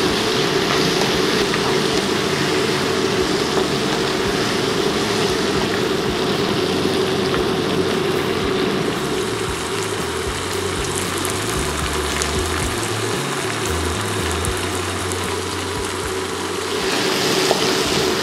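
Lamb and onion sizzling steadily as they fry in plenty of oil in a wok, stirred with a wooden spoon, with a steady low hum underneath.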